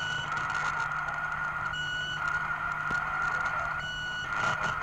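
Tape recording of the Sputnik 1 satellite's radio signal played back: a steady whistling tone over radio hiss and crackle, with a short high beep about every two seconds.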